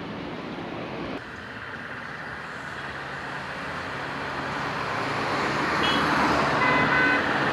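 Road traffic noise from motor vehicles, growing steadily louder over the last several seconds, with a few brief high tones near the end.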